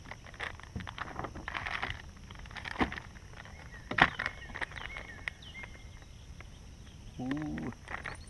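Rustling and clicking of fishing tackle being handled in a kayak, with a sharp click about four seconds in. Near the end comes a short low hum of a man's voice.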